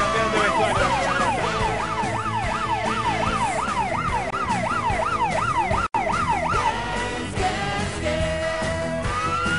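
Police siren effect over dance music. A fast up-and-down yelp, about two and a half sweeps a second, stops a little under seven seconds in, and a slow rising-and-falling wail begins near the end. The sound drops out for a split second about six seconds in.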